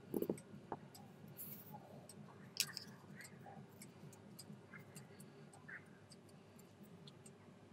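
A sheet of origami paper being folded and creased by hand on a wooden tabletop: quiet paper rustling and crinkling with scattered soft taps. The loudest are a brief crinkle right at the start and a sharp tick about two and a half seconds in.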